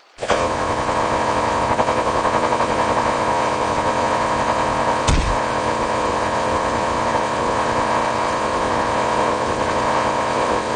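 Rapid electronic Morse code beeping used as a character's speech: a steady high tone buried in harsh, buzzing noise, with fast flutter and no pauses. A brief thump about five seconds in.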